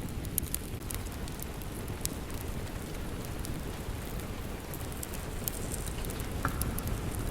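Steady rain with a low, rumbling wash, layered with a crackling wood fire whose small sharp pops come at irregular moments.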